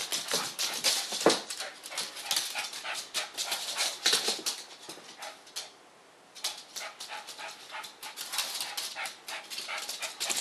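Small fluffy dog moving about on a hardwood floor, its claws clicking and skittering in rapid runs, with one brief cry from the dog about a second in and a short lull near the middle.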